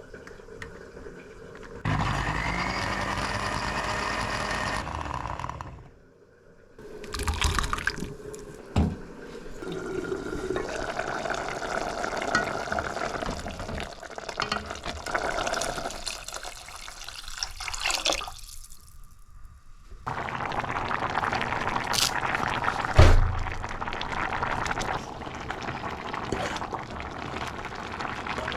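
Kitchen cooking sounds of liquid being poured and splashing, in several short clips that start and stop abruptly, with a single knock about two-thirds of the way through.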